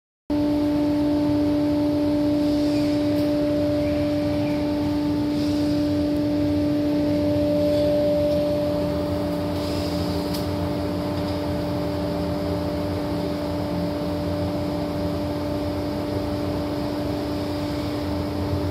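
ShopBot CNC router spindle running: a steady whine with a fainter overtone over a rushing machine noise, with a few faint ticks. The sound eases slightly about halfway through.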